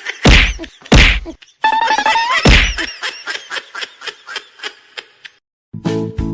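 Three loud whacks, the last preceded by a rising pitched glide, then a run of quickly repeating knocks that fade away. After a brief silence, music starts near the end.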